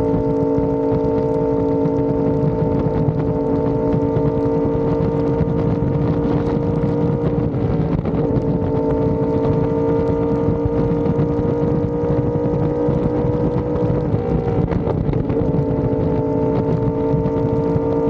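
Yamaha R1M's crossplane inline-four, through an SC Project exhaust, cruising at a steady engine speed, with wind and road noise underneath. The engine note dips briefly about eight seconds in and again a few seconds before the end.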